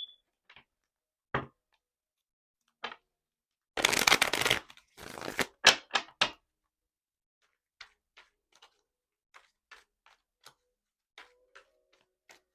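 Tarot cards being shuffled and handled: a short dense shuffling burst about four seconds in, a few sharp card snaps right after, then faint scattered taps and clicks.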